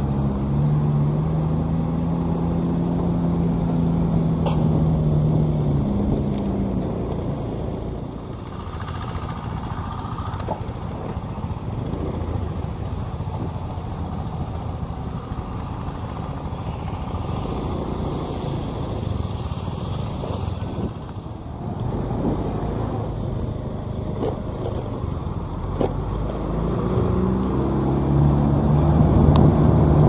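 Motor vehicles driving slowly on a rough road: continuous engine drone and road rumble, with a steady engine hum at the start that drops in pitch and fades, then comes back near the end.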